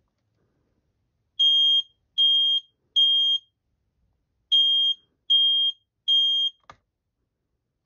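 Kidde i9060 ionization smoke alarm sounding its test: loud, high-pitched beeps in the temporal-three pattern, three short beeps, a pause, then three more. A short click follows just after the last beep.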